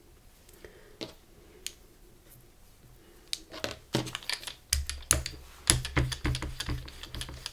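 Irregular light clicks and taps of paint containers and tools being handled on a tabletop while paint is added to a gel plate used as a palette: only a few clicks at first, then a quick run of taps with dull knocks through the second half.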